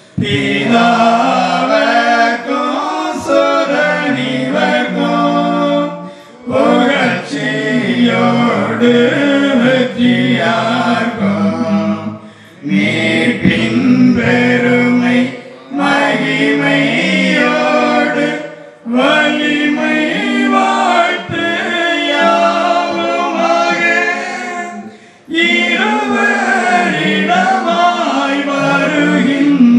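A group of voices singing a Tamil devotional hymn, phrase after phrase with brief pauses between them.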